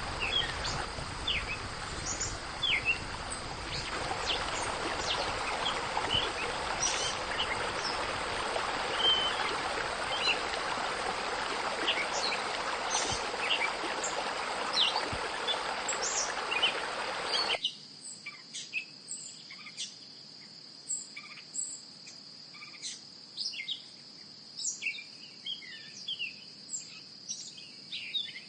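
Small birds chirping repeatedly over a steady high insect drone. Under them an even hiss sounds for the first two-thirds and cuts off abruptly, leaving only the birds and insects.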